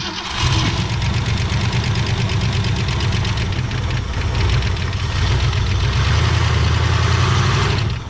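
A 1965 Ford Falcon's 289 V8, long unused and fed from a makeshift fuel tank, catches about half a second in and runs steadily.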